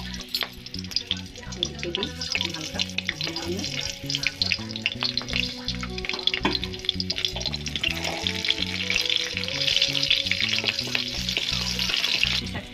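Green chillies sizzling and crackling in hot mustard oil with cumin and mustard seeds in an aluminium kadhai. The sizzle grows denser and louder in the second half, and near the end a wooden spatula stirs the pan.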